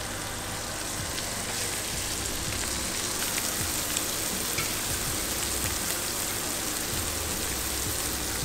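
Mutton snapper fillets frying in foaming butter in a skillet: a steady sizzle with a few faint spits.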